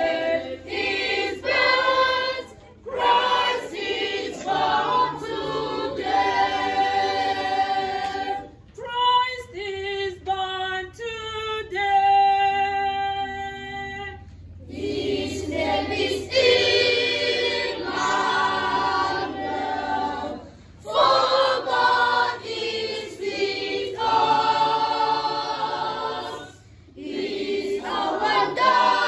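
Children's choir singing in phrases of a few seconds with short breaks between them, with a quieter, thinner stretch in the middle where fewer voices carry the tune.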